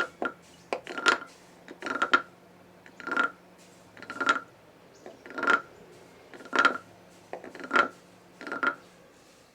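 Decorative wooden frog, a frog-shaped guiro, scraped with its stick along the ridged back: eight rasping croaks about a second apart, each a quick run of clicks with a ringing wooden note, stopping shortly before the end.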